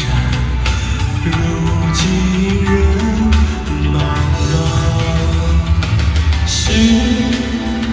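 Live music: a man singing into a microphone over instrumental backing, heard as amplified sound in a concert arena.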